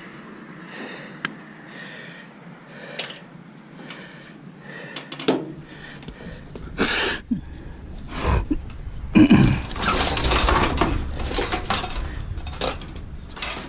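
Metal appliance parts clattering, knocking and scraping as the appliance is pulled apart by hand for scrap. It is faint at first with a few sharp clicks, then louder and busier from about halfway in.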